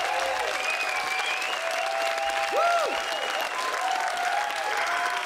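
Studio audience clapping steadily, with a few voices calling out over the applause.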